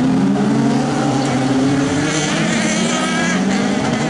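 Several autocross race cars' engines running at high revs as the pack passes close on a dirt track, their engine notes overlapping and rising and falling in pitch.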